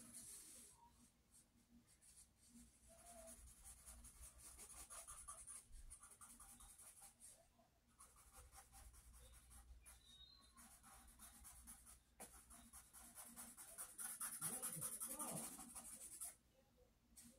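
Faint pencil scratching on sketchbook paper in irregular drawing strokes, louder for a couple of seconds near the end before stopping abruptly.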